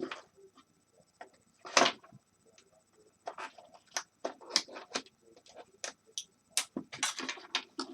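Clicks and knocks of hard plastic heater housing parts and small screws being handled and pried apart by hand, with one louder knock about two seconds in and quicker clicking in the second half.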